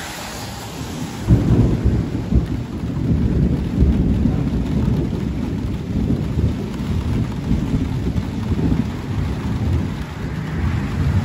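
Thunder: a deep rumble breaks in abruptly about a second in with a couple of sharp claps, then rolls on steadily.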